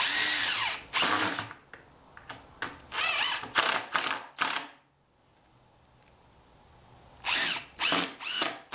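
DeWalt cordless impact driver driving screws into plywood in short bursts: two near the start, four in quick succession around the middle, then three more near the end, the motor pitch sliding as each screw runs in.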